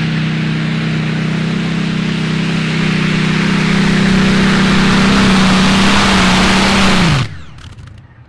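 Modified-class pulling tractor running flat out on the track, a steady engine note with a loud hiss, growing louder for several seconds. About seven seconds in, the pitch sags and the sound drops away abruptly.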